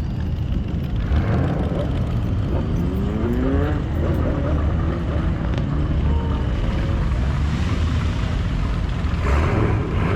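Car engine running with a deep steady rumble, revved up twice, its pitch rising about two and a half seconds in and again more gently around the middle.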